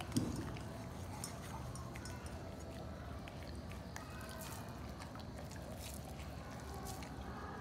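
A golden retriever licking and picking up scattered rice grains off a hard floor: small wet mouth clicks and smacks, with one short knock just after the start, over a low steady background hum.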